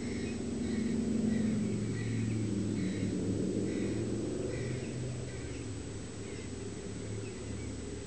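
Three twin-engined propeller aircraft flying over in formation, a steady low engine drone that slides slightly down in pitch and eases off gradually after peaking just over a second in. Short high chirps repeat about twice a second over it.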